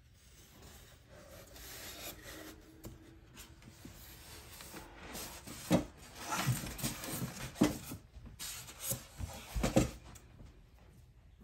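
Styrofoam packing and a cardboard box being handled: rubbing and scraping noise, with a few sharp knocks in the second half.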